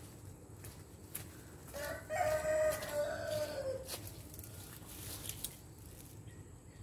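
A rooster crowing once: a single call of about two seconds that drops in pitch at its end.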